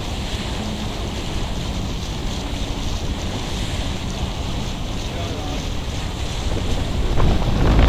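Wind buffeting the microphone over the steady rush of sea water from a moving boat; the wind gets louder and gustier near the end.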